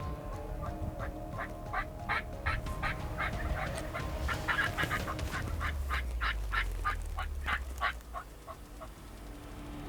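Turkey yelping: a long run of quick yelps, about four a second, louder in the middle and tapering off near the end.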